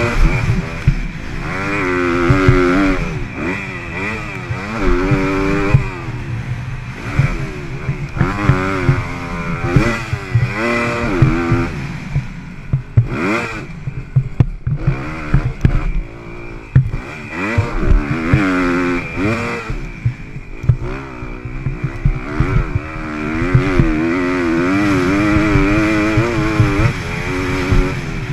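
Motocross bike engine, recorded on board, revving up and dropping back again and again as the rider opens and closes the throttle around the dirt track. Frequent knocks and clatter from the bike over the bumps run through it.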